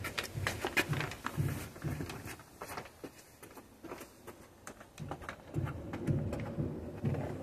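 Kiln-dried sand pouring from a bag onto block paving in a steady hissing, pattering stream, with soft footsteps on the paving about two a second that pause midway and start again.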